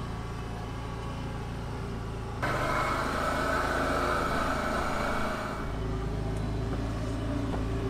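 Can-Am Defender HD10 side-by-side's V-twin engine running steadily as it drives over a snowy trail, heard from inside the closed cab. About two and a half seconds in it turns louder and brighter, with tyre and running-gear noise, as heard from outside beside a front wheel. About five and a half seconds in it settles back to a steady hum.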